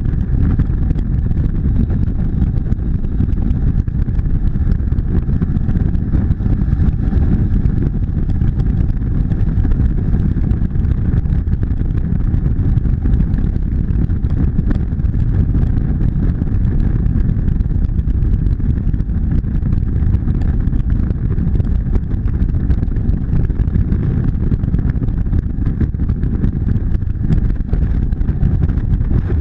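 A motorcycle engine running steadily at cruising speed, under a heavy, even rumble of wind on the microphone.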